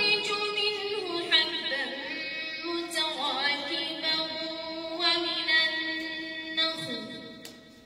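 A woman reciting the Quran in melodic tajweed style into a microphone, with long held, ornamented notes that bend in pitch. The phrase fades out near the end.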